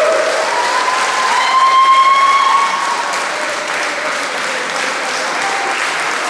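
Audience applauding, a steady clapping that eases a little after about three seconds, with a long, slightly rising high call over it between about one and three seconds in.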